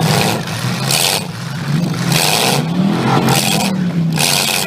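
Stock V8 demolition derby car engines revving up and down, with repeated short bursts of hissing noise.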